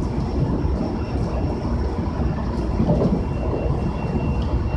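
Cabin of a JR Central 373 series electric train running at speed: a steady low rumble of wheels on rail. A faint thin high whine comes in about three seconds in.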